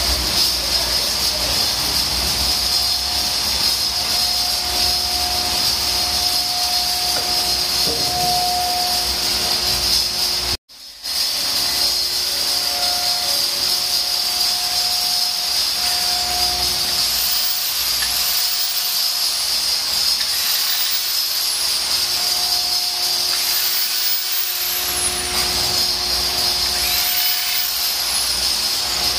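Corded electric drill running steadily, turning a valve seat cutter in an aluminium cylinder head, with a high steady hiss. The sound cuts out for a moment about ten seconds in.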